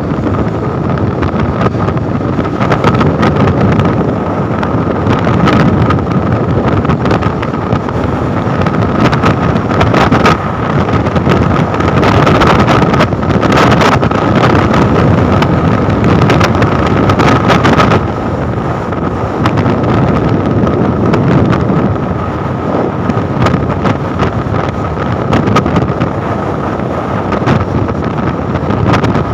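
Wind rushing over the microphone of a phone on a sport motorcycle moving at highway speed, over the steady running of the bike's engine, with a steady whine through it.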